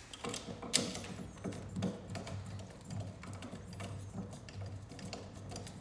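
10 mm ratchet wrench clicking in quick irregular runs as it turns an M6 nut onto a bolt held still with an Allen key, tightening the nut against a metal pipe clamp.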